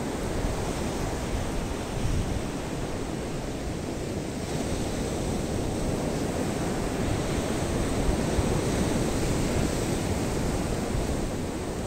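Rough sea surf breaking steadily on a sandy beach, with wind rumbling on the microphone.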